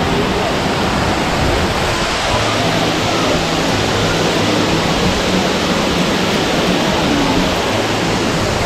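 Soco Falls, a double waterfall, pouring onto rocks close by: a steady, even rush of falling water that does not change.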